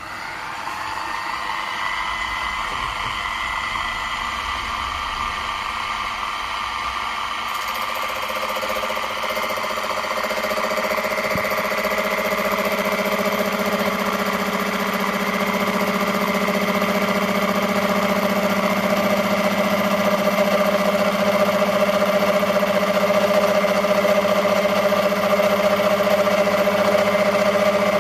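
Small Warco milling machine running, its motor coming up to speed about a second in and then running steadily with a whine. About a third of the way in a deeper hum and higher tones join and it grows a little louder as the gear cutter works into the bronze gear blank.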